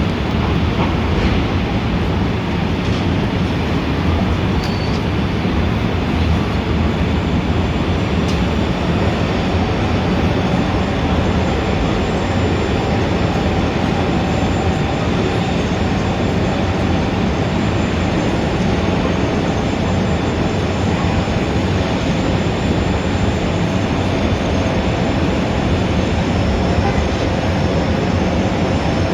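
Steady city traffic ambience: a continuous dense rumble with a few faint high tones above it.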